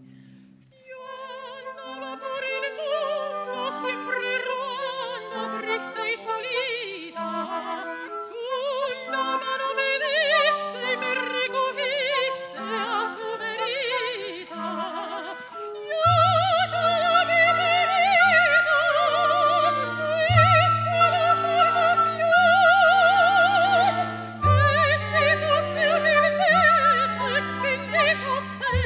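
Operatic soprano singing with wide vibrato, accompanied by an orchestra. It starts after a brief hush, and about 16 s in the orchestra fills out with sustained low bass notes under her high held phrases.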